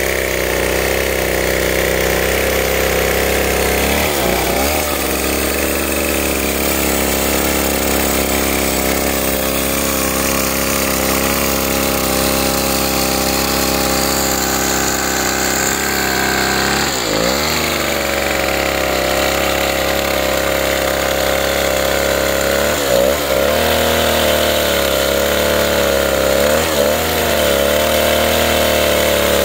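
Stihl chainsaw's two-stroke engine running at high revs while ripping lengthwise along a log. Its pitch briefly dips and recovers four times.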